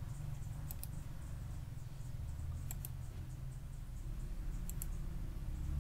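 Computer mouse clicking: three short pairs of clicks about two seconds apart, as a PowerPoint right-click menu is worked, over a steady low hum.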